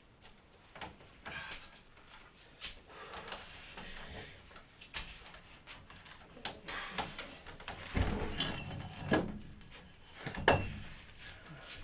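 Scattered knocks, clicks and creaks of timber skids and steel pipe rollers as a heavy machine tool is shifted across the floor, with two heavier thuds about 8 and 10.5 seconds in.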